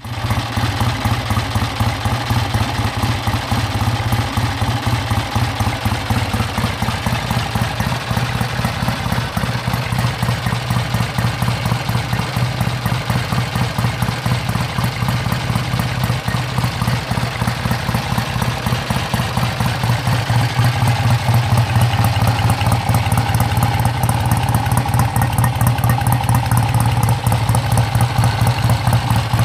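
1966 Triumph Thunderbird 650's air-cooled parallel-twin engine idling steadily on its stand, with an even exhaust beat that gets a little louder about two-thirds of the way through.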